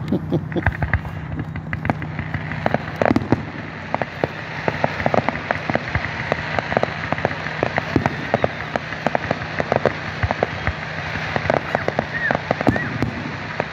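Fireworks going off: a dense, irregular run of sharp bangs and crackles from aerial shells, with a continuous crackling hiss between the louder reports.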